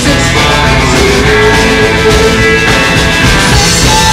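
A live rock and roll band playing an instrumental passage: a hollow-body electric guitar with a Bigsby vibrato, a plucked upright double bass and a drum kit, with long held guitar notes over the beat.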